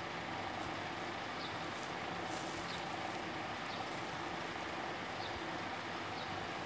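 Steady low background hiss with a faint hum and a few faint soft ticks: room tone with no distinct source.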